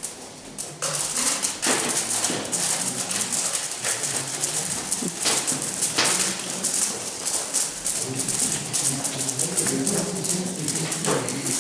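A dense, steady rattling like a shaker starts abruptly about a second in and keeps going, over a low murmur of voices.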